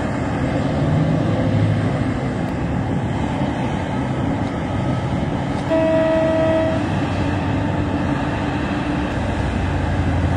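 Heavy mining machinery running steadily as a Liebherr R 996 excavator loads a Hitachi haul truck. A little past the middle comes one horn blast about a second long.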